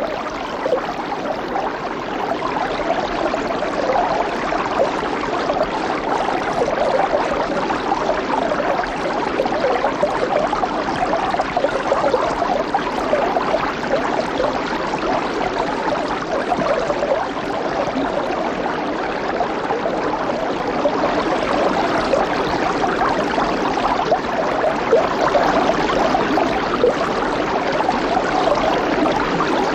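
Water running steadily over a tiny waterfall, a continuous splashing and trickling.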